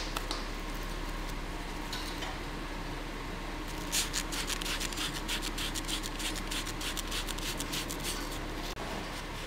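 Abrasive paper rubbing on a small metal brake caliper guide pin as it is cleaned by hand: a run of quick scraping strokes starting about four seconds in and stopping near the end, over steady workshop background noise.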